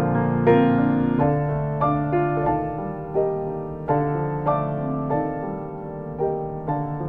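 Background piano music: slow, gentle notes struck about once or twice a second over a held low note.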